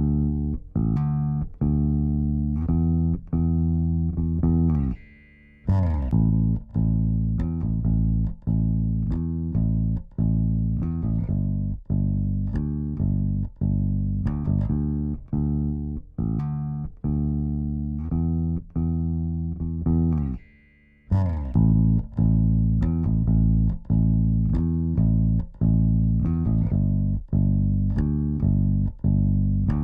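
Electric bass guitar playing a repeating line of plucked notes, about two a second, run through vari-mu tube compressor plugins. The phrase ends in a slide down and a brief gap, then starts again, twice.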